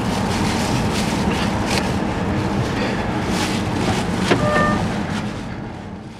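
Car cabin noise from a moving car: steady engine and road rumble with scattered knocks and clicks, a sharper knock and a brief high squeak about four seconds in, then everything fades out near the end.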